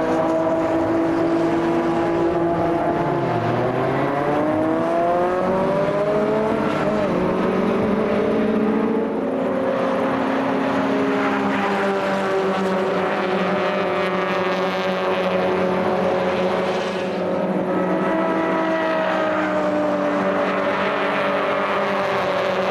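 Several racing car engines running at once, their pitch dipping and then climbing as the cars slow and accelerate around the circuit.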